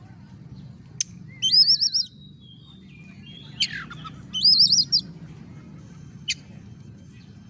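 Oriental magpie-robin singing: two short bursts of rapid, wavering warbled notes, with single sharp chip calls before, between and after them.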